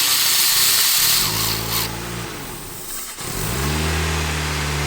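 2016 Honda HR-V engine running with a loud hiss over the first two seconds. About three seconds in the sound briefly drops out, then a steady hum comes back, rising slightly. Meanwhile the engine ground strap G101 is being loosened.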